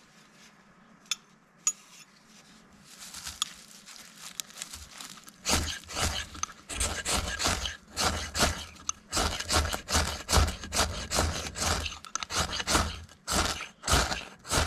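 Cold Steel Pocket Bushman folding knife at work: two sharp clicks about a second in, then from about five seconds in a run of irregular cutting strokes, about two to three a second, with scraping between them.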